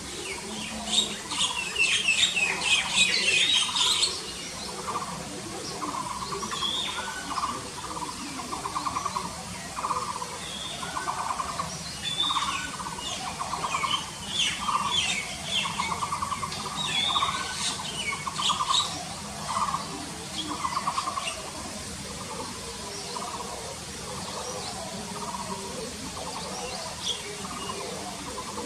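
Wild birds calling in woodland: a burst of high chirping about a second in, then a lower note repeated about once a second for some fifteen seconds, with more high chirps over it.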